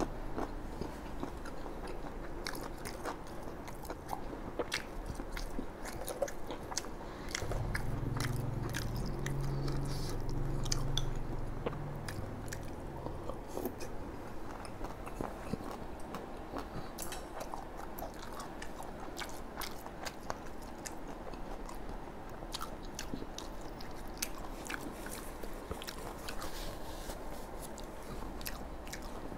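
Close-miked chewing of fried tofu, with many small wet mouth clicks and smacks. A low hum sounds for about five seconds, starting about a quarter of the way in.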